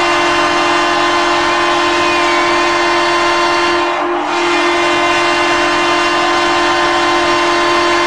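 Mississauga St. Michael's Majors arena goal horn: a loud air horn sounding one long, steady blast with a brief dip about four seconds in.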